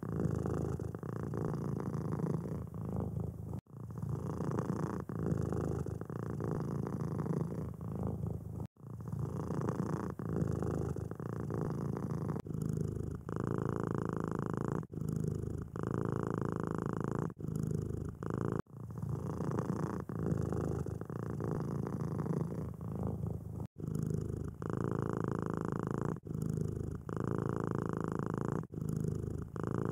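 Domestic cat purring steadily, with a few brief breaks.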